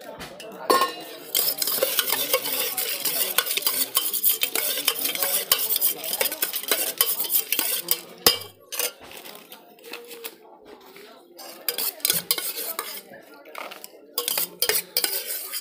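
Steel spoon rapidly stirring and scraping a dry bhelpuri mix in a steel bowl: a fast, dense clatter of metal on metal. About halfway through it thins out into scattered taps and scrapes.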